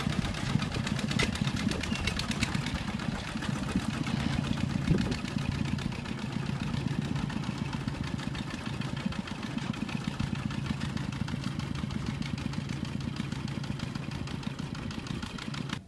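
Kubota two-wheel walking tractor's single-cylinder diesel engine chugging steadily as it hauls a loaded trailer through deep mud ruts, growing fainter as it pulls away.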